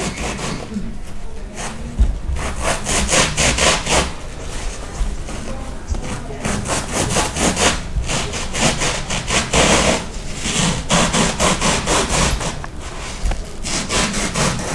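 Serrated bread knife sawing through a block of white packing foam, in bouts of quick back-and-forth scraping strokes with short pauses between them.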